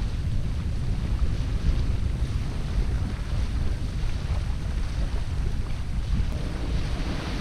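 Wind buffeting the microphone in a steady, gusting low rumble, over a soft hiss of small waves washing onto a sandy shore.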